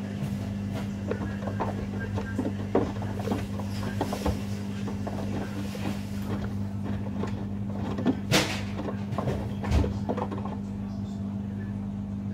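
Hoover Link and Samsung washing machines running a rapid 30-minute wash: a steady motor hum with irregular clicks and clunks from the tumbling drums, a few louder knocks about eight to ten seconds in.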